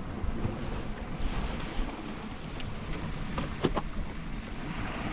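Wind buffeting the microphone over the wash of the sea. A few sharp clicks come at about three and a half seconds in.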